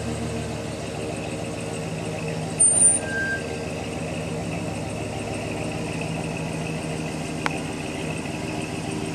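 An engine running steadily at a constant speed, with a brief loud sound and a short beep about two and a half to three seconds in and a single click near the end.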